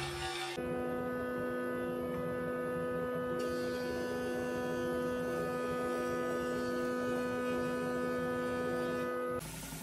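Stationary woodworking machine running steadily: an even hum with several steady whining tones, no change in pitch. It cuts in about half a second in and cuts off abruptly shortly before the end.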